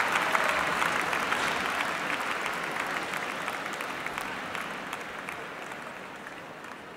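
Applause, many hands clapping, dying away steadily.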